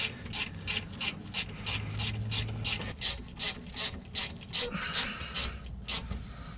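Ratchet wrench clicking at an even pace, about three clicks a second, as a 10 mm brake caliper bolt is run in by hand.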